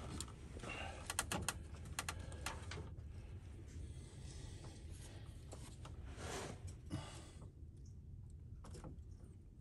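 Faint metal clicks and light taps of hand tools on a Cummins 6.7 diesel's valve rocker arm as a valve lash adjuster is reset. Several clicks bunch together in the first couple of seconds, then come more sparsely.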